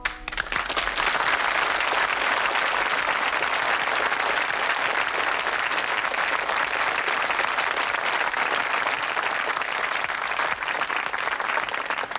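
Studio audience applauding at the end of a song, breaking out all at once and holding steady.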